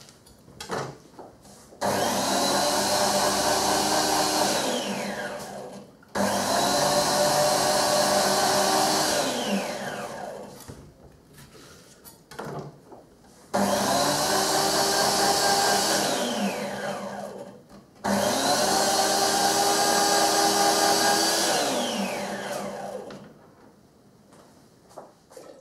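Electric citrus juicer motor running in four spells of about four seconds each as orange halves are pressed onto its cone. Each spell starts suddenly and winds down at the end with a falling whine. Light knocks of a knife on a cutting board come in the gaps.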